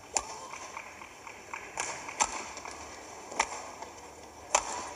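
Badminton rally: rackets striking the shuttlecock, five sharp cracks roughly a second apart over faint arena noise.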